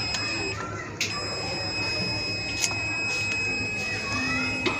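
Satellite finder meter sounding a steady high buzzer tone, its signal alarm showing that the dish is picking up the satellite as it is aimed. There are a few sharp clicks from the dish being handled, one about a second in.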